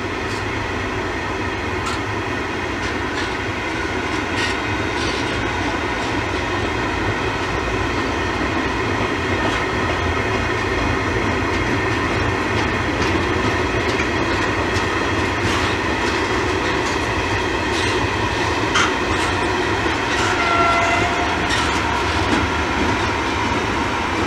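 M62 "Taiga drum" diesel locomotive's two-stroke V12 engine running steadily under load as it hauls a heavy freight train away, with the clickety-clack of the wagons' wheels over rail joints. A brief higher tone sounds about twenty seconds in.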